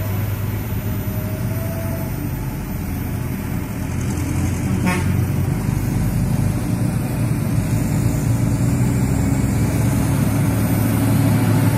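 Heavy diesel truck engines running under load as the trucks pull round a bend. It is a steady low drone that grows louder about four seconds in.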